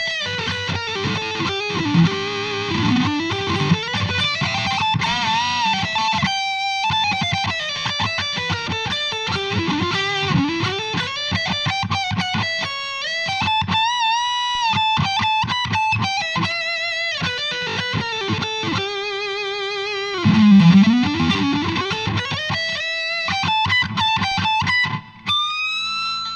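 Electric guitar played through a Vox VT20X Valvetronix modelling amp: a lead line of sustained notes with string bends and vibrato, in a driven preset tone.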